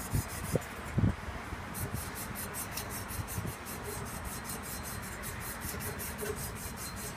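Refrigerant tubing being sanded to prepare it for brazing: a steady rasping rub in quick, even strokes, with a few light knocks in the first second.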